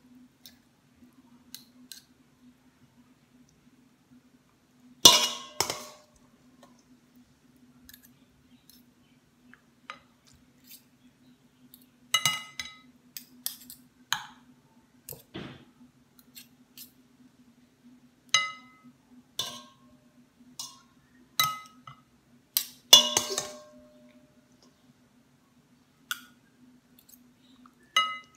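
Metal spoon and fork clinking against each other and against a glass baking dish as stuffing is spooned into round courgettes: scattered single clinks that ring briefly, with the two loudest about five seconds in and about two-thirds of the way through. A faint steady hum runs underneath.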